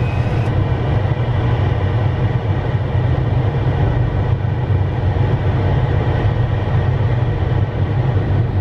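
Steady flight-deck noise of a Dassault Falcon 8X, a three-engine business jet, on short final approach: an even low rumble of airflow and engines.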